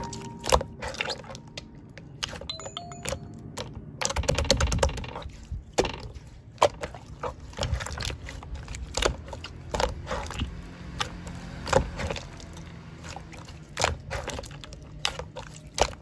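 Slime being squished and stretched by hand, with irregular wet clicks and pops, and a louder, denser run of squelching about four seconds in.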